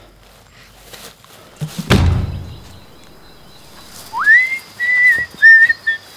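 A deep, heavy thud with a short rumble about two seconds in, then a person whistling: one note gliding up, followed by several short held high notes.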